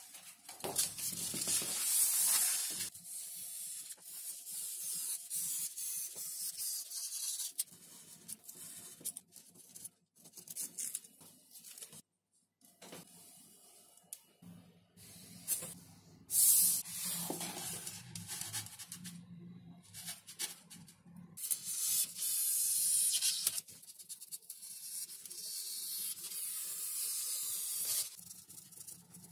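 Paper template rustling and sliding over a sheet of XPS foam board, with a marker scratching along the template's edge as its outline is traced onto the foam. The handling comes in several hissy bursts with quieter gaps between.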